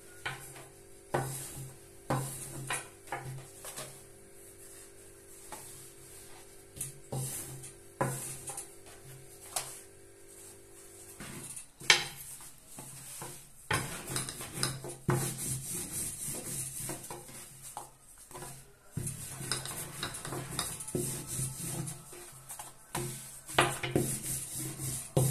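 A long thin wooden rolling pin knocking and rolling on a countertop while thin dough sheets are unrolled and rolled out. Scattered knocks, with a sharp knock about twelve seconds in, then near-continuous rolling and rubbing.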